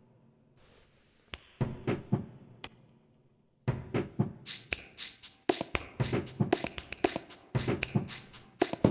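Percussive music made of sharp taps and knocks: a few scattered taps at first, then from about four seconds in a quick, dense rhythm of clicks and thuds, several a second.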